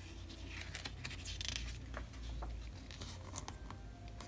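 A page of a picture book being turned by hand: faint paper rustling and crinkling with a few small clicks of handling.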